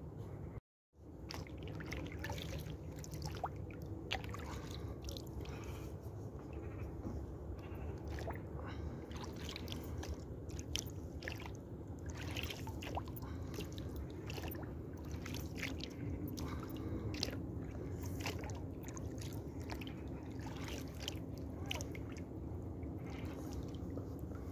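Small drips and splashes of water around an inflatable kayak being paddled: scattered light clicks over a steady low rumble. The sound cuts out completely for a moment just under a second in.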